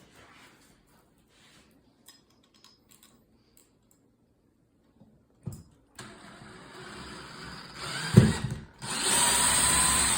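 Power drill with a Phillips bit driving a construction screw through a plastic ceiling box into a wooden joist. The motor starts about six seconds in and whines under load, stops briefly, then runs louder as the screw bites. There are a couple of knocks along the way.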